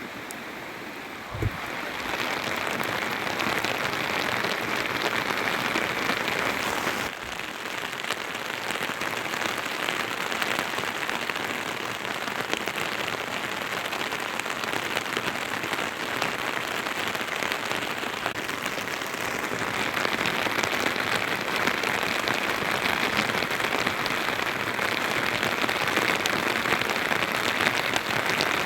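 Steady rain falling, an even hiss of drops. It grows louder about a second and a half in, with a short low thump there, and dips briefly about seven seconds in.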